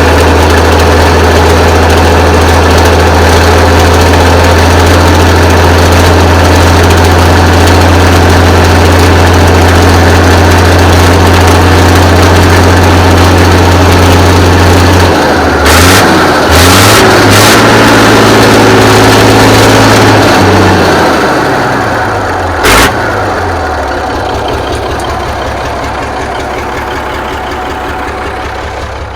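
1983 Kenworth K100 cabover's diesel engine running steadily and loud, its speed rising and falling for a few seconds past the halfway point, then slowing with a falling pitch and fading away over the last several seconds. A few short hisses and one sharp click sound during the speed changes. This is the engine the owner judges worn out and in need of replacement after heavy smoking.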